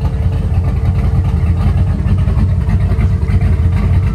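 Twin-turbo 383 stroker V8 of a 1955 Chevrolet 3100 pickup idling with a steady, pulsing low rumble, a faint steady whine over it.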